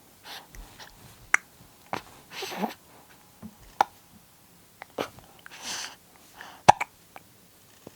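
A young baby hiccupping: short sharp hiccups every second or two, the loudest near the end, with soft breathy sounds between them.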